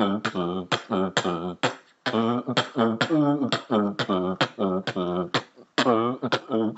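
A man beatboxing: rhythmic, pitched vocal sounds cut by sharp clicks, with two short breaks.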